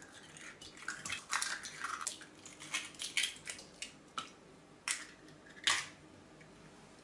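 Raw eggs cracked one after another on the rim of a glass bowl and broken open by hand: a string of sharp cracks and clicks with the soft crunch of shell.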